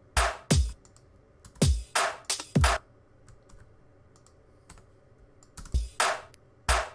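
Sampled drum-and-bass drum loop played back in short stop-start snippets of a few hits at a time: kicks with a falling low thud and bright snare hits. Faint computer clicks fill the gaps while the loop is being edited.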